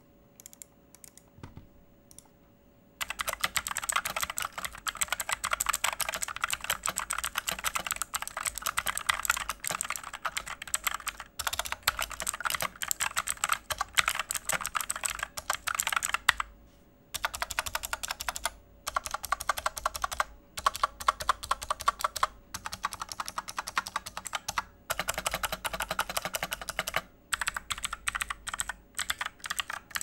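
Typing on a Fantech Maxfit87 MK856 TKL mechanical keyboard fitted with blue switches: a few faint clicks, then fast continuous typing from about three seconds in, broken by several short pauses and stopping just before the end.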